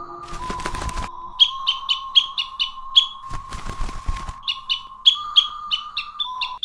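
A small bird chirping in quick runs of short, high, identical chirps, each dropping slightly in pitch, over a steady high tone. Two short bursts of rustling noise come about half a second in and again past the three-second mark.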